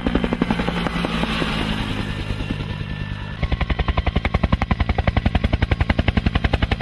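Bell UH-1 'Huey' helicopter flying low, its two-bladed main rotor beating in a rapid, even rhythm over a steady low hum. About three and a half seconds in, the beat turns louder and sharper as the helicopter comes closer.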